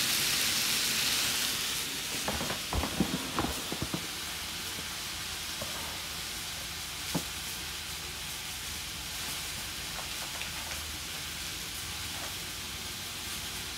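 Pork, onion and shishito peppers sizzling in a wok, louder at first and settling to a quieter steady sizzle over the first couple of seconds. A few light knocks sound about two to four seconds in, and one more near the middle.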